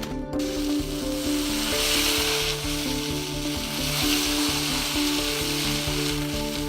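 A dense crackling hiss like food sizzling in a pan starts about half a second in and grows louder in places. Background music with held notes plays under it.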